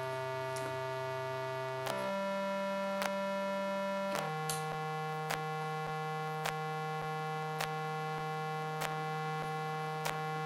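Circuit-bent Yamaha PSS-30 keyboard holding a steady droning note that steps to a new pitch about two seconds in and again about four seconds in. Faint clicks come through it at an even pace, a little over a second apart.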